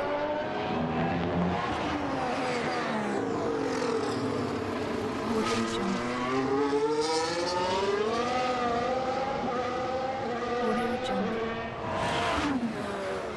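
Formula 1 engine running at high revs, its pitch swinging up and down. The pitch climbs to a peak about eight seconds in, then falls away sharply near the end.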